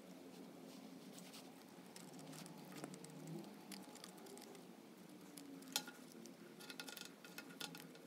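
Faint, scattered small ticks and crackles from soldering wire onto a toggle switch terminal with an electric soldering iron and solder wire. There is one sharper click about six seconds in.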